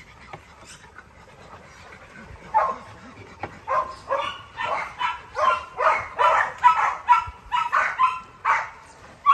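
A dog barking over and over, about two barks a second, starting a couple of seconds in and stopping just before the end.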